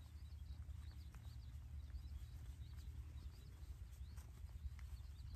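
Faint outdoor ambience: small high bird chirps scattered throughout over a steady low rumble, with a few faint ticks.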